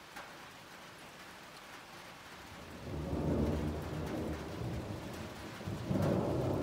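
Steady rain falling, with a low rumble of thunder rolling in about three seconds in and swelling again near the end.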